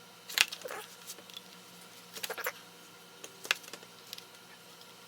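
Light clicks and taps from a soldering iron and solder wire being worked on a resistor's loose joint on a circuit board. There is a sharp click near the start, a quick run of ticks about two seconds in, and another sharp tick about three and a half seconds in.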